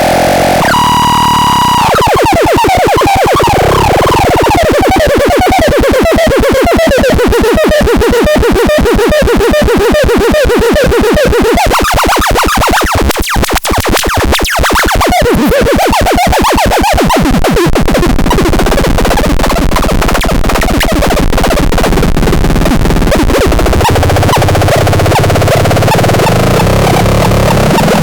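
Loud, harsh synthesized electronic noise. A short steady beep about a second in gives way to a rapid buzzing pulse full of falling pitch sweeps, which turns into a rougher, steadier drone after about 18 seconds.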